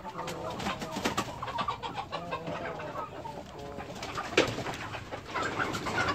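A mixed flock of chickens, jungle fowl among them, clucking and calling in a pen, with many short clicks and one sharp knock about four seconds in.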